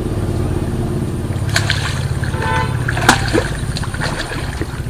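A hooked catfish thrashing and splashing at the water's surface, with two sharp splashes about a second and a half and three seconds in, the second the loudest. Under it runs a steady low rumble.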